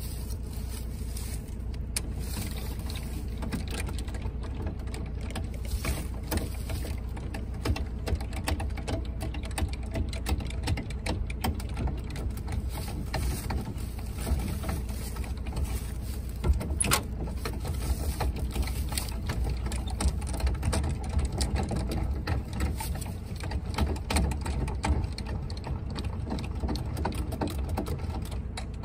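Trailer jockey wheel being wound down by its hand crank, a steady run of small mechanical clicks and rattles as the trailer's coupling head is lowered toward the car's tow ball, over a low steady rumble.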